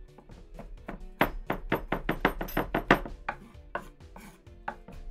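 Kitchen knife mincing garlic on a well-worn cutting board that is not flat, so the board knocks under the blade: a fast run of chopping strikes, quickest and loudest from about one to three seconds in, then slower, scattered taps.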